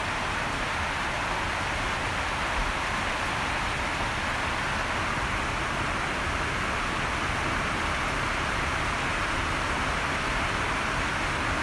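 A steady, even hiss of background noise that holds unchanged throughout, with no other sound standing out.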